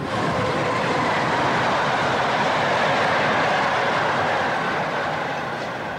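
Electric passenger train running past on the rails: a steady rush of wheel and track noise that swells as it goes by and eases off toward the end.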